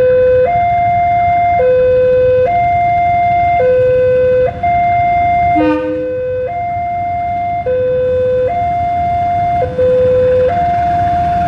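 Railway level-crossing warning alarm sounding a steady two-tone electronic signal, low and high notes alternating about once a second, over the low rumble of an approaching diesel locomotive and train.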